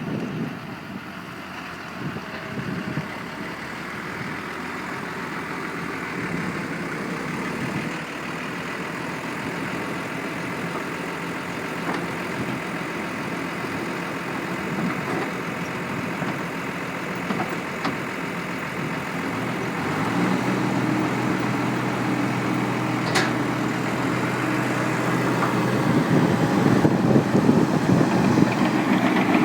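Diesel engine of heavy farm machinery running steadily and growing gradually louder, with a steadier, deeper engine note setting in about two-thirds of the way through.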